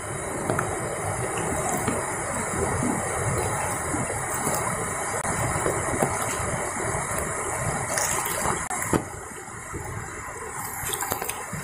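Fast-flowing river rushing over rocks, a steady noise, with a few short handling knocks about two-thirds of the way in.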